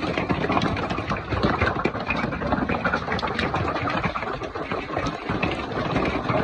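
Golf-ball-size hailstones pounding down in a dense, continuous clatter of impacts.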